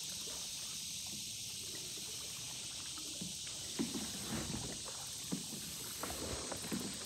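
Kayak paddle strokes splashing in the river, with small knocks, starting about halfway through, over a steady high drone of insects in the trees.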